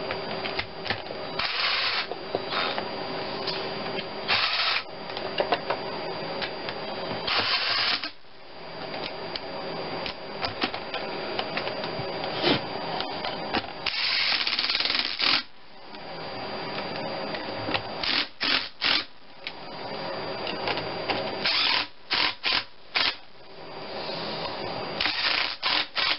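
Cordless drill with a long socket extension running in a dozen or so short bursts, driving down the mounting bolts of a rebuilt single-barrel throttle body. The longest burst, about a second and a half, comes near the middle, and quick triple bursts come in the last third.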